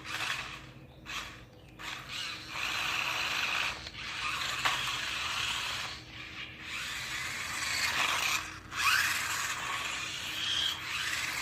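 Sharper Image Spin Drifter 360 toy RC car's small electric drive motors and gearbox whirring in repeated stops and starts as it is driven and spun, with a short rising whine near the end.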